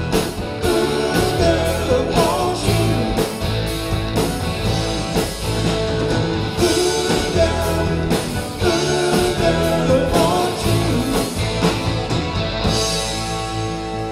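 Live rock band playing with drums, bass and guitar on a steady beat. Near the end the drum strikes thin out and a held chord rings on.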